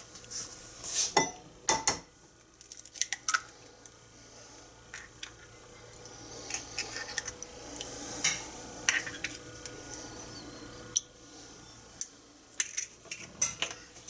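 Scattered light clinks and taps of a glass bowl and a stainless steel bowl being handled while eggs are separated, the loudest few about one to two seconds in.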